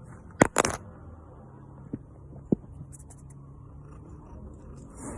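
Two loud sharp clicks close together near the start, then two lighter clicks about two seconds in, over a low steady hum.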